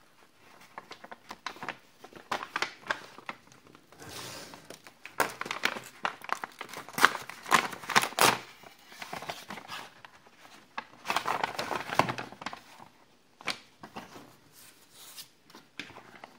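A paper mailing envelope being torn open by hand, the paper tearing, rustling and crinkling in irregular bursts.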